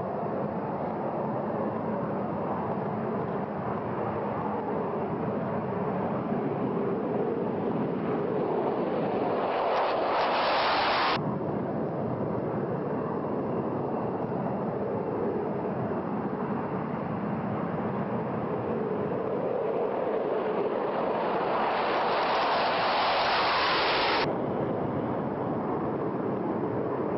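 Continuous jet aircraft engine noise, steady and loud, that swells twice and cuts off suddenly each time, about eleven seconds in and again near the end.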